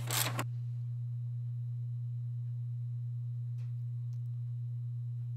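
Steady low hum, one unchanging low tone. A brief burst of ratchet clicking at the very start, and two faint ticks a little past halfway.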